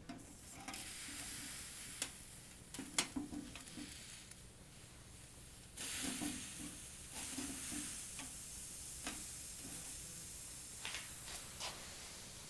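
Homemade Super Cat alcohol stove burning under a titanium cup of water: a soft sizzling hiss, broken by several sharp clicks and knocks of handling, the loudest about two and three seconds in.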